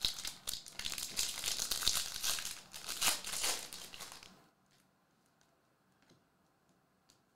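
Foil wrapper of a Panini Mosaic Serie A trading-card pack crinkling as it is torn open and the cards are pulled out, for about four and a half seconds before it stops.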